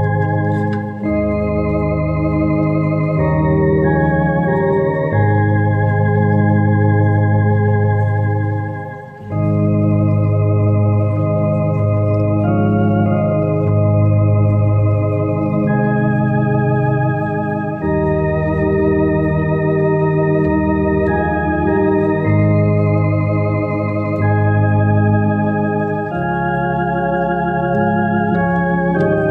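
Tokai YX 400 Organist electronic organ playing a hymn in sustained chords over low, changing bass notes, with a brief pause between phrases about nine seconds in.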